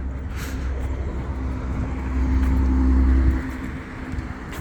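A motor vehicle driving past close by with a low engine rumble. It grows louder to a peak about three seconds in, then drops away.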